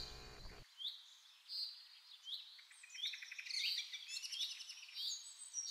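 Forest birds calling: short high whistled notes repeated about once a second, with a busier run of quick chirps and trills in the middle.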